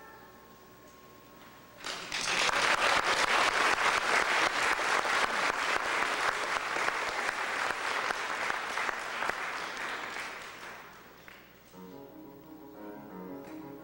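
Audience applauding for about nine seconds, starting about two seconds in after the last notes of a grand piano die away, then tapering off. Near the end the grand piano starts again with a quick run of separate notes.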